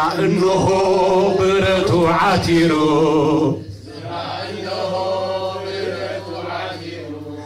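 A man's voice singing in a chant-like style: two long, wavering melodic phrases with a short break about halfway through. A steady low hum runs underneath.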